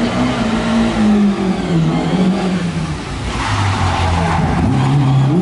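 Rally car engine revving hard on a closed stage, its note holding high, falling away about three seconds in as the driver lifts off, then climbing again as it accelerates.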